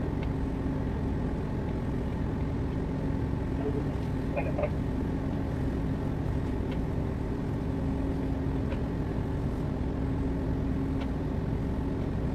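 Steady low rumble and hum of a tanker's engines and machinery with the ship under way, holding an even level throughout.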